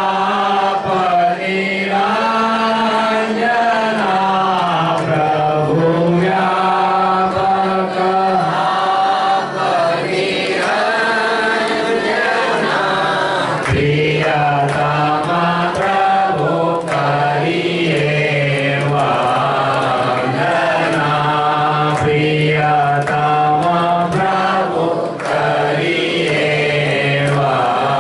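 A group of voices chanting a devotional hymn together, continuous and steady.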